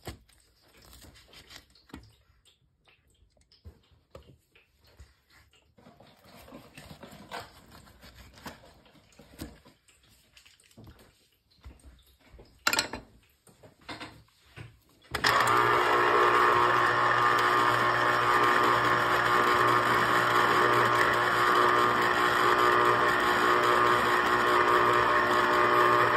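Juiceman electric citrus juicer's motor starts suddenly about halfway through and runs with a steady hum as an orange half is pressed onto the spinning reamer. Before it starts there are only faint clicks and knocks.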